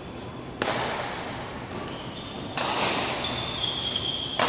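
Badminton rackets striking the shuttlecock during a rally, three sharp hits about two seconds apart, each ringing on in the echo of the large hall. Short high squeaks of court shoes on the floor come between the hits.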